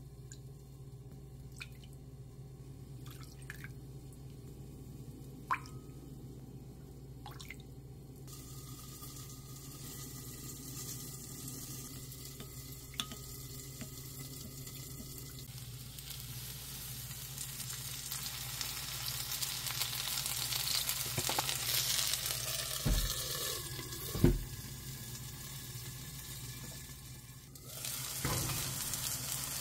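A white plastic measuring spoon clinks a few times against a small glass bowl as sauce is measured in, then stirs it with a scraping that grows louder. Two knocks come near the end, the second the loudest sound, and then floured chicken pieces sizzle in a frying pan. A low steady hum lies underneath.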